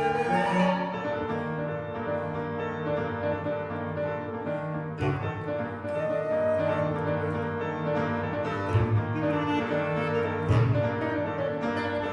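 Contemporary classical chamber music for flute, clarinet, electric guitar, piano and acoustic bass, with the double bass and piano most prominent: sustained notes over a low bass line, cut by a few sharp accented attacks.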